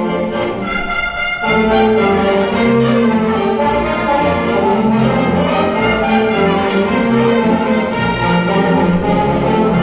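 Orchestra with brass playing classical-style music, with a fuller, louder passage coming in about a second and a half in.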